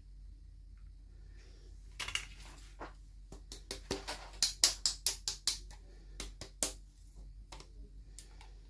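A rapid run of sharp plastic clicks and taps from small miniature toy pieces and their packaging being handled. The clicks come in an irregular burst of a dozen or more, starting about two seconds in and stopping suddenly well before the end.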